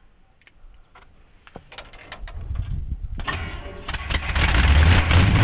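Cold start of a 1969 Chevy C-10 truck's engine: a few clicks, then the starter cranks and the engine catches about four seconds in and keeps running, revving up near the end.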